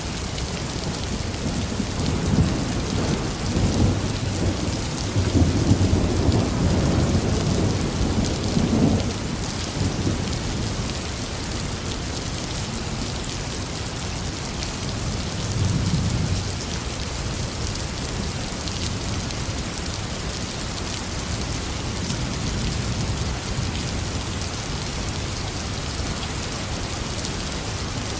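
Heavy rain falling steadily, with thunder rumbling long and low from about two seconds in to about nine seconds, and a shorter, fainter rumble around sixteen seconds.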